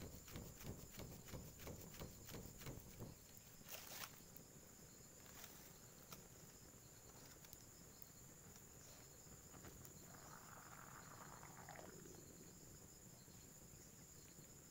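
A small wood cooking fire being fanned by hand, about three soft whooshing strokes a second, stopping about three seconds in. A few faint crackles and clicks follow over a steady, high insect trill.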